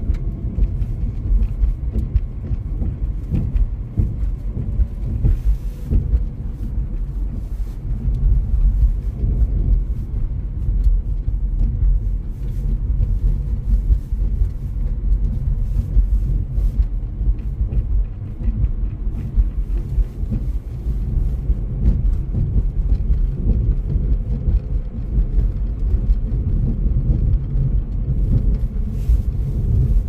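Steady low rumble of a car driving, tyre and engine noise heard from inside the cabin.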